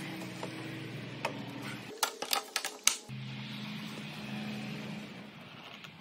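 Solid wood pieces of a dovetail joint being fitted together by hand: a few light knocks, then a quick run of sharp wooden clacks about two seconds in, over a low steady hum.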